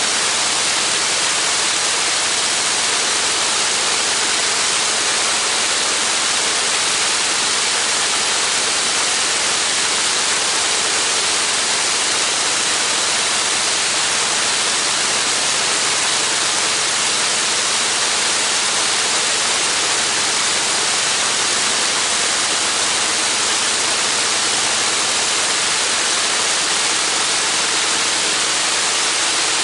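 Radial engine of a Spirit of St. Louis replica running steadily on the ground, heard as a loud, even rush of propeller and exhaust noise over a faint low hum.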